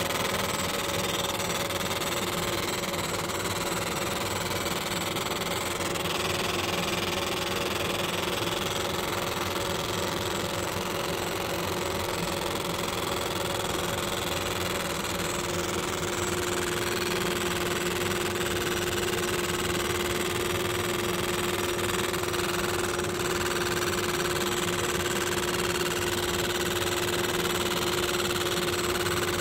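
60-watt MOPA fiber laser engraver marking stainless steel: a steady machine hum and hiss with a constant tone that grows stronger about halfway through.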